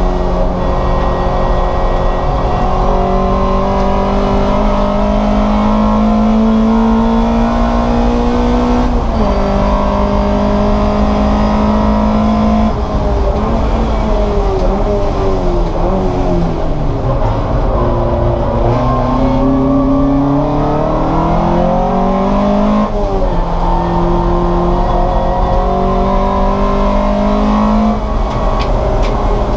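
Race car engine running hard and held at high revs. Its pitch climbs slowly and drops sharply at upshifts about a third of the way in and again near the three-quarter mark. In the middle it falls in steps through downshifts as the car brakes for a corner, then climbs again as the car accelerates out.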